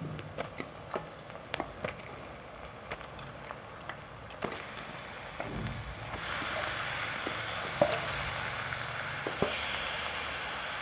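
Onions and whole spices sizzling in hot mustard oil in a kadai, with scattered light clicks and pops. About six seconds in the sizzling grows clearly louder as raw chicken pieces go into the hot oil.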